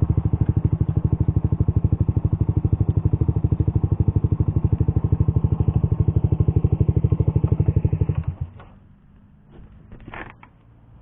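Suzuki GSX-R150's single-cylinder four-stroke engine idling through an R9 Misano racing exhaust, an even, rapid pulse, then switched off about eight seconds in.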